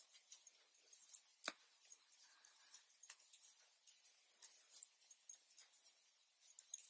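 Hand knitting with metal needles: faint, irregular light clicks and clinks as the needles work the stitches, with one sharper click about a second and a half in.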